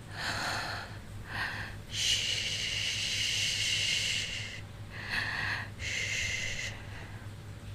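A woman breathing heavily and close to the microphone: about five breathy breaths, one long drawn breath in the middle.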